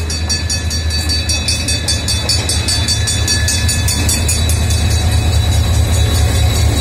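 Diesel-electric locomotive hauling a passenger train slowly past along a station platform. There is a steady low engine rumble with the rolling noise of the train, growing louder as the locomotive passes close by.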